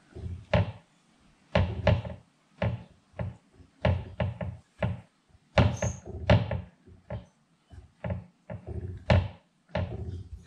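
A raw steak being pressed, patted and rolled on a wooden board to pick up loose seasoning rub: a string of irregular soft thumps, about two a second.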